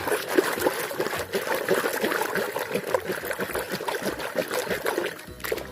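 A plastic toy being washed by hand in a tub of water: continuous splashing and trickling with small knocks of the toy, dying down near the end.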